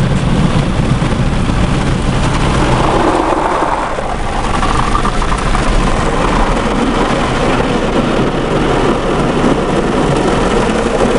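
An automatic car wash running over the car, heard from inside the cabin through a window that won't fully close: a loud, continuous rush of water spray and wash machinery. The deep rumble eases about three seconds in, leaving mostly the hissing spray.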